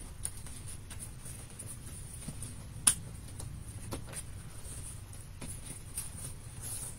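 Quiet room hum with a few faint clicks, and one sharper click about three seconds in.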